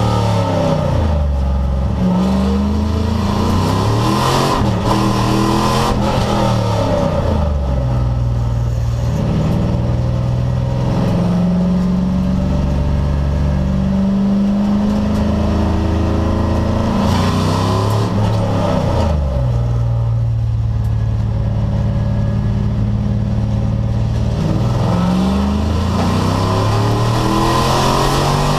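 AS-class race car engine run hard through a lap. Its pitch rises under acceleration and drops sharply on lifts and downshifts several times, with stretches held at near-steady revs in between.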